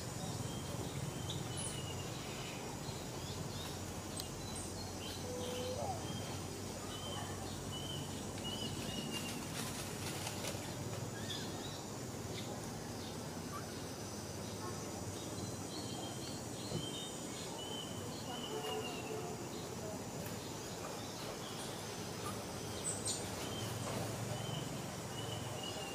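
Steady outdoor background noise with a bird's short high chirps, repeated in runs of several at a time throughout.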